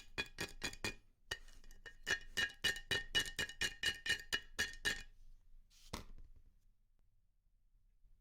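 Rapid metal-on-metal taps, about four a second, each ringing briefly, with a short pause about a second in; they stop about five seconds in and are followed by one more tap about a second later.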